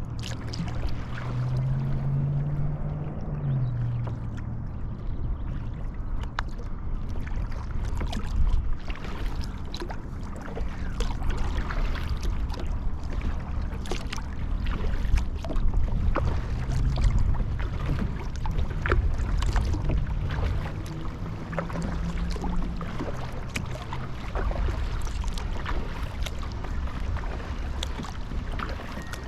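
Kayak paddling: water splashing and dripping off the paddle and lapping at the hull, with many small splashes over a steady low rumble. A low hum rises briefly near the start and again about two-thirds of the way through.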